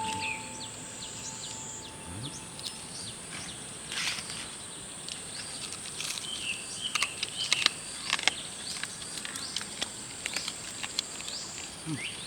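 Outdoor countryside ambience: insects buzzing steadily at a high pitch, with many short bird chirps and scattered sharp clicks.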